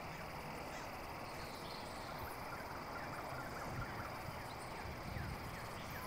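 Faint outdoor ambience: a steady low hiss with scattered short, falling chirps from small birds.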